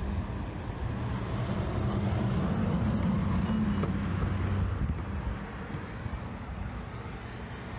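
Road traffic going by: a steady rush of car engines and tyres that swells about two to three seconds in as a vehicle passes, then drops away after about five seconds.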